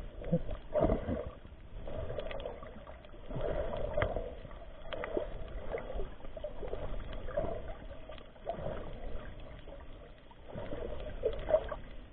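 Muffled sloshing of water around a submerged camera as the snorkeler swims, swelling and fading every second or two, with a few faint clicks.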